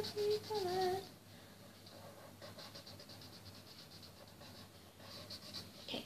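Felt-tip marker rubbing on paper in quick, repeated colouring strokes, a little louder near the end. A girl hums a few notes during the first second.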